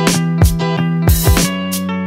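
Background music with a steady drum beat over sustained pitched notes.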